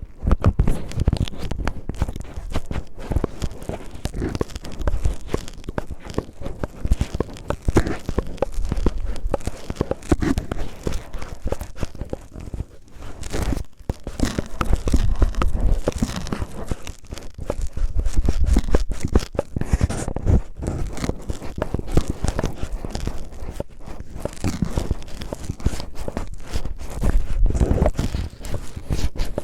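Cellophane crinkled and rubbed roughly against the microphone in imitation of ear cleaning: a dense, irregular crackling with frequent low thumps.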